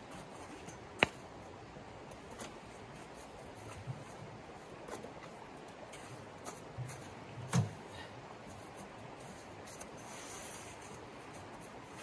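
Scattered clicks and knocks of camp gear being handled: a sharp click about a second in and a duller thump a little past halfway. Under them runs the steady rush of a shallow stream flowing.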